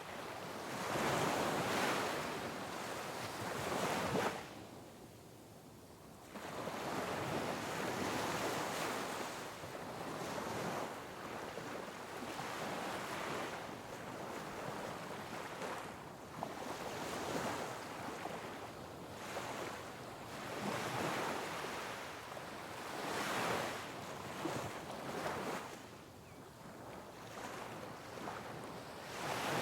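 Sea waves breaking and washing over rocks, one surge after another every few seconds, with a short lull about five seconds in.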